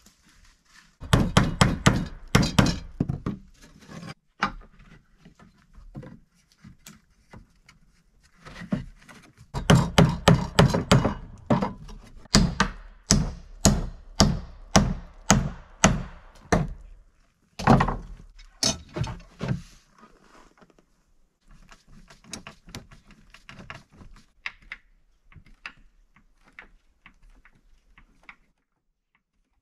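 Sharp wooden knocks as the joints of a wooden window frame are struck into place on a plank deck. There is a quick flurry about a second in, a longer run of blows at about two a second through the middle, then lighter taps near the end.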